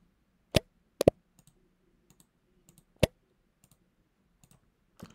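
Computer mouse button clicks: a single click, a quick double click about a second in, and another click about three seconds in, with a few fainter ticks between.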